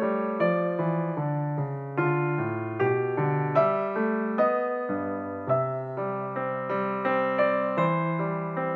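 Background piano music: an unhurried keyboard melody over chords, notes struck about twice a second and each dying away.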